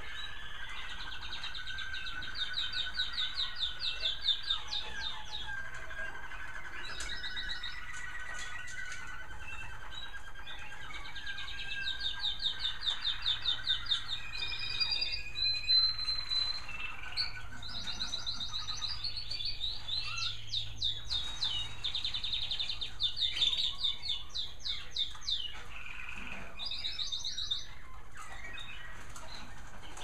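Several American Singer canaries singing at once, their overlapping songs made of fast rolling trills and chirps, with the busiest, loudest stretches in the middle and later part.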